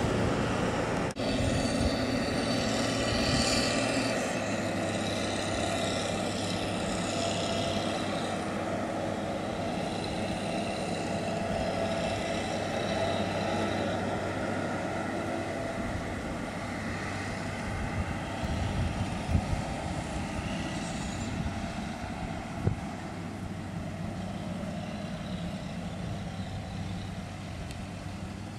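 Combine harvester running steadily, a continuous engine and machinery drone whose note shifts about four seconds in and then slowly grows fainter.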